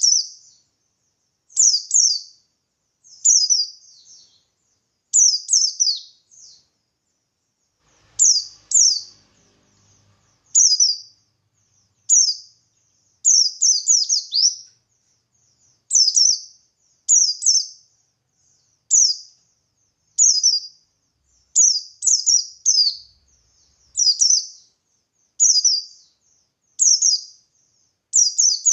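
Buxtoni white-eye (pleci) singing in lively 'ngalas' style: short, high, rapid chirping phrases, one to three notes at a time, repeated about every second or so.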